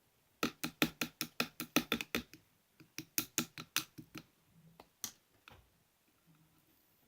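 Clear slime being worked by hand, giving a quick run of sharp clicking pops about five a second, a short pause, a second run, and one last pop about five seconds in.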